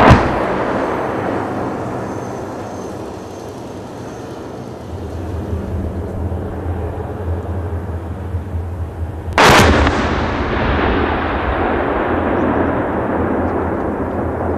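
Two heavy artillery blasts, one right at the start and one about nine and a half seconds in, each fading away in a long echoing rumble.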